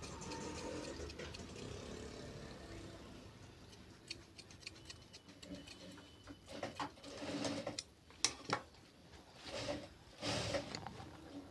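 Sewing machine running steadily for the first few seconds, then clicks and rustling of fabric being handled.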